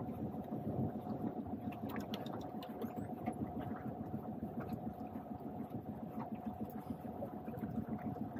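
Steady low mechanical whirring with a constant mid-pitched hum running through it, on a small boat while a fish is reeled in on a rod.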